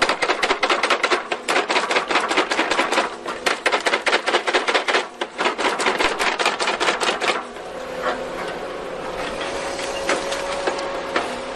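Excavator stump grapple shaking a pulled tree stump, giving a fast, even rattle of knocks several times a second as soil is shaken from the roots. About seven and a half seconds in the knocking stops and the machine runs on steadily with a held whine.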